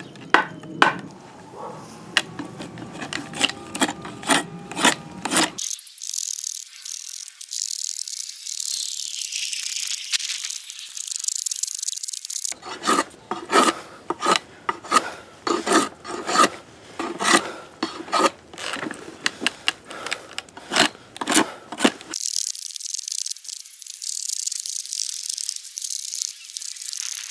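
A draw knife shaving a rough piece of orange tree wood in repeated short scraping strokes, each one a rasping cut, about one or two a second.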